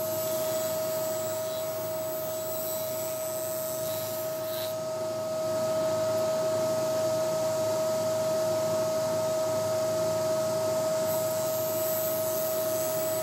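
Powermatic table saw running steadily: a high, even whine over motor noise, a little louder from about halfway through.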